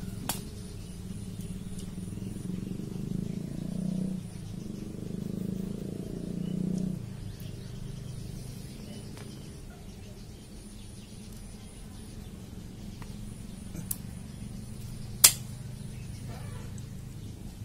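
Bypass pruning shears cutting through a woody bougainvillea stem: one sharp snap a few seconds before the end, with fainter clicks earlier. A steady low hum runs underneath.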